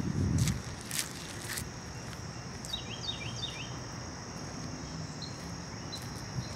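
Insects droning steadily in thin high tones, with a short run of bird chirps about three seconds in. A brief low rumble on the microphone at the start and a few sharp clicks in the first two seconds.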